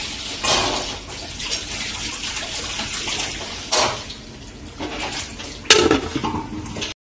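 Aluminium cooking pot and lid clanking a few times over a steady hiss. The loudest clank comes near the end as the lid is handled with a cloth, and the sound cuts off abruptly just before the end.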